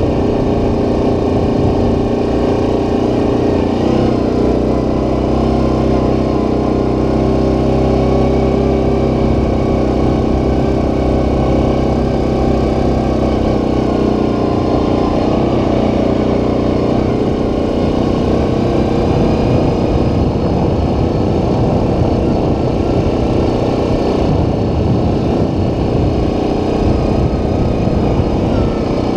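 ATV's single-cylinder engine running steadily while riding along a dirt trail, its note shifting slightly about halfway through.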